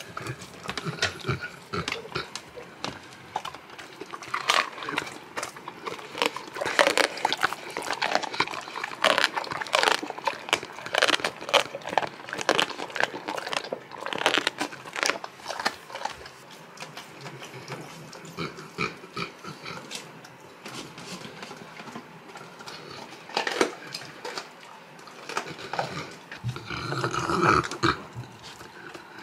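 Saint Bernard eating raw meat and bone from a steel bowl: irregular wet chewing, smacking and crunching, in busy stretches with short pauses.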